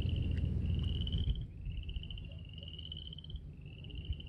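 Frogs calling in high, pulsing trills, each lasting under a second, one after another with short gaps. A low rumble underneath is loudest at first and drops away about a second and a half in.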